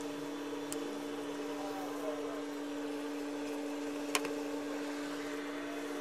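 Steady electric hum of a running appliance or motor, with a sharp click about four seconds in and a fainter click near the start.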